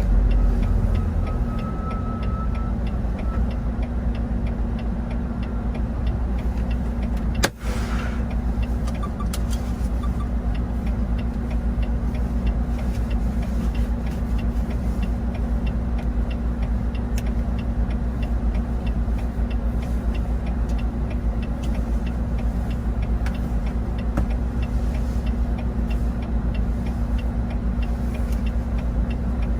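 Steady engine and road drone inside a moving truck's cab, with a constant low hum. A single sharp click about seven and a half seconds in.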